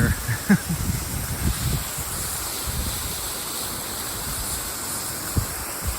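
Steady rushing of a waterfall, with wind buffeting the microphone in low gusts, mostly in the first two seconds.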